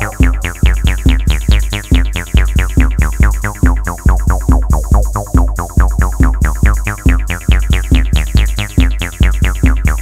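Electronic dance music: a drum machine beat with heavy bass pulses about twice a second, overlaid with rapid, quickly falling synthesizer zaps.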